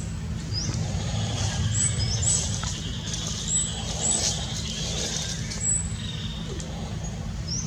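Short, high chirps from birds, about eight spread over several seconds, over a steady low rumble like distant traffic.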